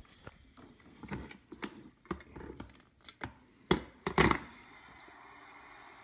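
Handling noise from working refrigerant charging hoses and a canned-air can in a plastic tub: scattered knocks and clicks, with two louder knocks about four seconds in. A faint steady hiss follows.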